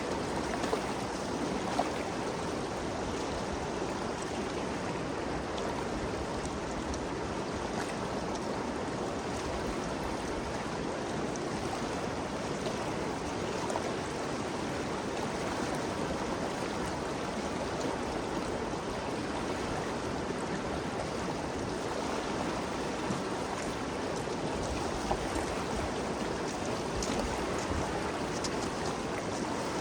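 The Ganges River flowing steadily: a continuous rush of running water that neither rises nor falls.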